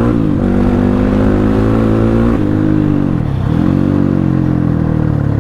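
CX300C motorcycle running with both dB killers removed, its open exhaust loud and steady under way. The revs dip briefly near the start, then fall sharply a little past the middle and climb back up.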